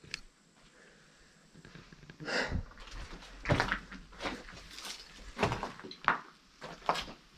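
Footsteps crunching on broken brick and plaster rubble, starting about two seconds in and continuing at an uneven walking pace.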